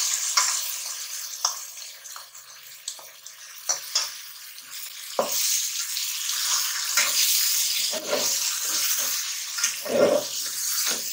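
Spiced masala and fried bitter-gourd (karela) peels sizzling in oil in an aluminium pot, with sharp clicks and scrapes of a spoon and a metal spatula against the metal as the masala is scraped in and stirred. The sizzle thins out for a few seconds after the masala goes in, then picks up again with the stirring.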